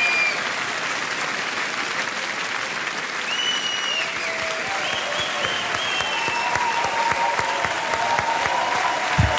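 A large audience applauding steadily, with a few voices calling out over the clapping and a short low thump near the end.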